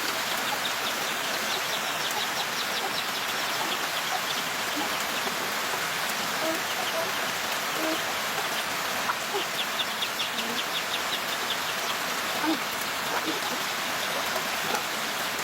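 Steady rain falling, with a quick run of high ticking chirps a little past the middle.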